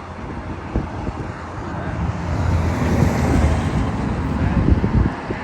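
A motor vehicle passing by, its low rumble swelling through the middle and easing near the end, with wind on the microphone.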